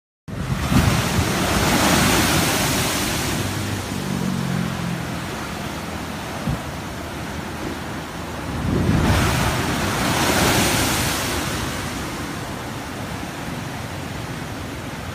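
Rough storm surf crashing against a concrete seawall: two big waves break, one about a second in and another around nine seconds in, with a continuous wash and hiss of churning water between them.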